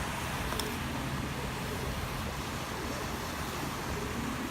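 Wind buffeting the microphone at the beach, a steady rush with low, fluttering rumble, with a faint click about half a second in.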